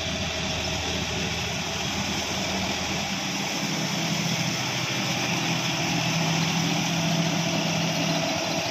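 John Deere 5210 tractor's 50 hp diesel engine running steadily under load while pulling a rotary tiller through wet mud, growing a little louder about halfway through.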